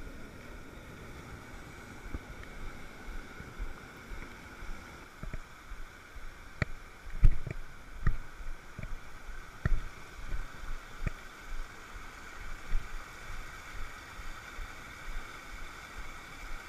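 Mountain stream rushing over boulders, a steady hiss of white water. A few sharp knocks and low thumps come through between about six and eleven seconds in.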